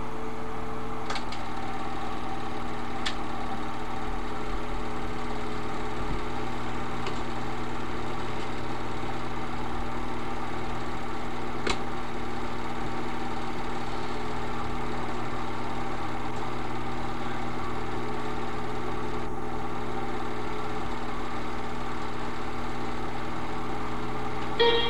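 Film projector running: a steady mechanical hum and whir, with a few faint clicks. Music starts right at the end.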